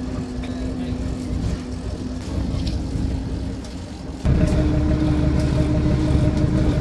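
A fishing boat's engine running with a steady hum and low rumble; about four seconds in it switches abruptly to a louder, slightly higher-pitched hum.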